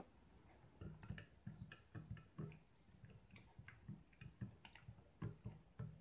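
A spoon stirring coffee in a double-walled glass, tapping against the glass in faint, quick ticks about three or four times a second, starting about a second in.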